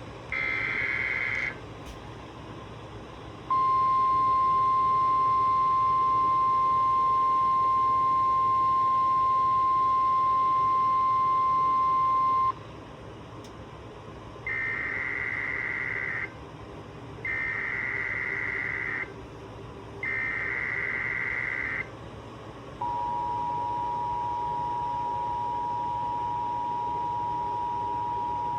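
Emergency Alert System tones: a one-second warbling burst of SAME header data, then the steady single-tone weather radio warning alarm for about nine seconds. Three more one-and-a-half-second bursts of SAME header data follow, then the steady two-tone EAS attention signal, announcing a severe thunderstorm watch.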